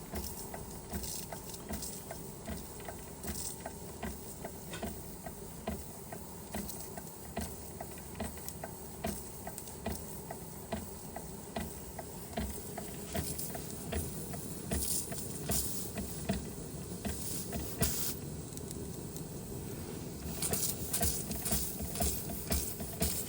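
Josef Falk 456/1S toy steam engine running under steam, with a fast, even beat of the cylinder's exhaust and light mechanical ticking from its moving parts and water pump mechanism. The beat grows a little louder near the end.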